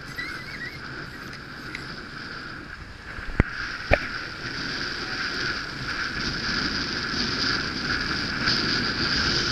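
Wind and water rushing past a Nautitech Open 40 catamaran sailing fast in strong wind, growing louder after a few seconds. Two sharp knocks half a second apart, a little over three seconds in.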